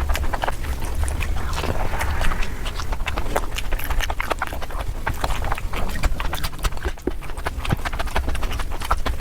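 Close-miked eating sounds: a person chewing a mouthful of mutton curry with rapid, wet smacking and clicking of the lips and mouth, several clicks a second, over a low steady rumble.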